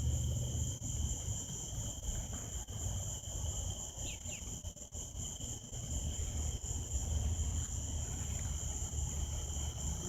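Steady high-pitched insect chorus in two constant pitches, over a low rumble, with a faint short chirp about four seconds in.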